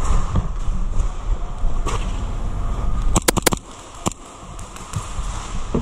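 Airsoft gun shots: a quick burst of four sharp cracks about three seconds in, then a single shot about a second later, over the low rumble of the player moving with the gear.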